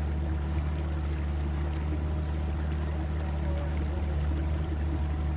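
A boat's motor running at a steady speed, a constant low hum, with water rushing past the hull.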